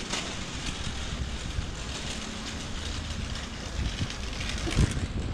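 Steady low rumble of city traffic with wind buffeting the microphone. A single low thump near the end.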